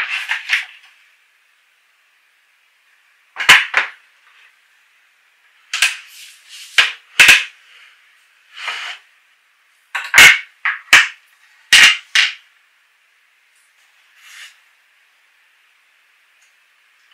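Wooden table boards knocking and clacking against each other and the bench as they are handled and folded on their hinges: sharp knocks in small clusters with pauses between.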